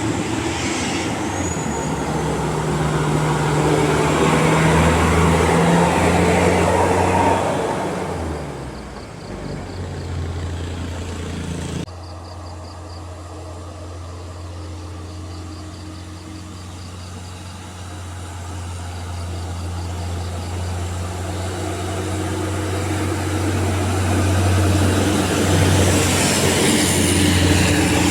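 Large bus engines running as buses pass on an uphill road. One passes loudly in the first seven seconds or so and then fades; after a sudden cut, a low steady engine drone grows louder toward the end as the next bus approaches.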